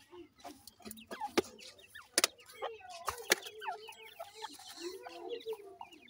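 Francolin chicks peeping rapidly in short high notes, with lower clucking calls mixed in, strongest in the second half. A few sharp clicks stand out, the loudest sounds, about one and a half, two and three and a half seconds in.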